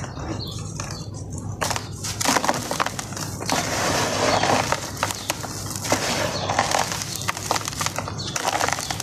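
Dry sand-and-cement chunks crunching and crumbling between hands, with gritty powder sifting and pouring into a plastic tub. There is a run of small crackling crunches throughout, and a longer hissing pour around the middle.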